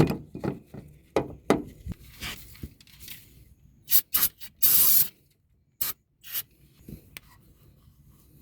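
Hands handling and fitting a car's oil filter: a knock, then a run of short knocks, rubbing and scraping, with several short hissing bursts about four to five seconds in and two more a second later.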